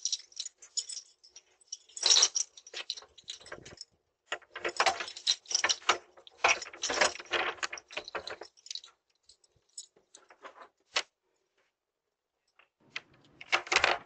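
A bunch of keys jangling and clinking in quick, irregular clusters, as keys are handled at a front door. The noise stops for a couple of seconds near the end, then more clattering starts.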